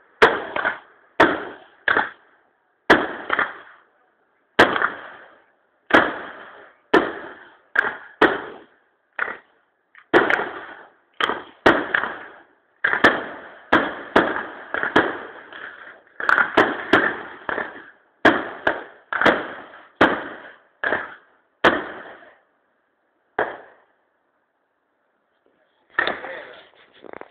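Aerial firework shells bursting in quick succession, about one or two sharp bangs a second, each dying away in an echo. There is a short lull near the end before the bangs start again.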